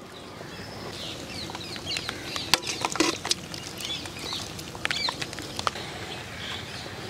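Birds calling in short chirps and clucks, with a few scattered sharp taps and clicks.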